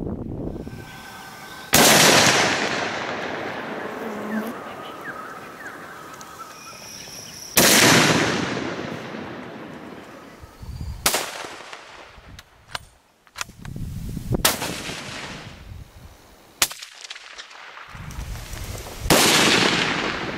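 Four hunting-rifle shots a few seconds apart. Each is a sudden crack followed by a long echo that dies away over several seconds, with a few fainter sharp knocks between the second and last shots.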